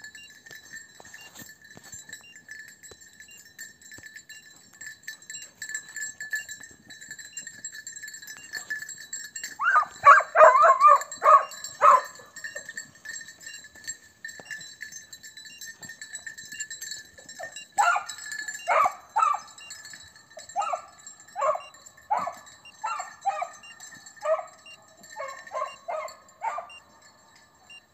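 Scent hounds baying on a hare's trail: a burst of overlapping bays about ten seconds in, then a string of single bays about once a second through the last third.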